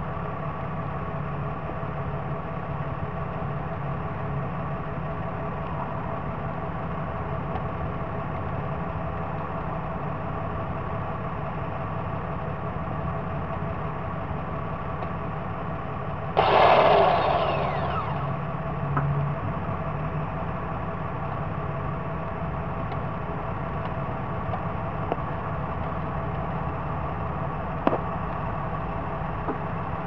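Engine idling steadily. About halfway through, a loud hissing burst lasts a second or so, and a single sharp click comes near the end.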